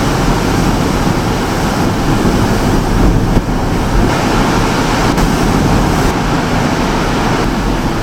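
Hurricane wind blowing hard over the microphone: a loud, steady rush with a gusty low rumble.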